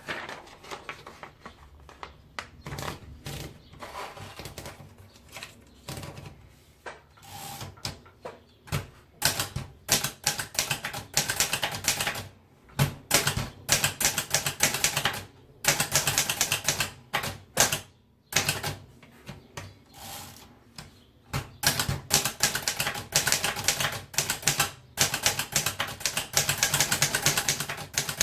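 Corona Four portable manual typewriter being typed on. A few slower, lighter key clicks come first, then fast runs of keystrokes broken by short pauses.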